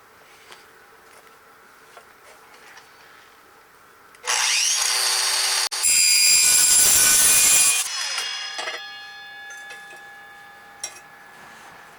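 A power tool grinding or cutting into metal in two loud bursts, the first starting about four seconds in and the second ending about eight seconds in. Afterward the metal rings with several steady tones that slowly fade.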